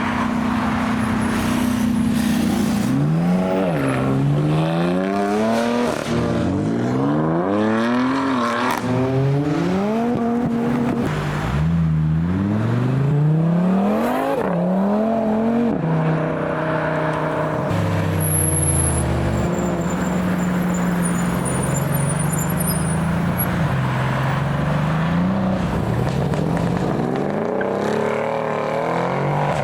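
Performance car engines accelerating hard. Their pitch climbs and drops again and again as they shift up through the gears, then settles into a steadier drone.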